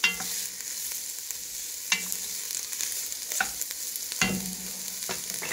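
Chopped peppers and red onion sizzling in hot oil in a Dutch oven, with a steady hiss. A wooden spoon stirring them scrapes and knocks against the pot a few times.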